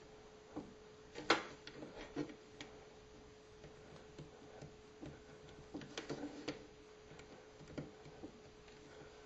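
Light scattered taps and clicks of fingers and fingernails on a wooden cutting board as small pieces of puff pastry are pressed and folded, the loudest a little over a second in and a cluster around six seconds. A faint steady hum runs underneath.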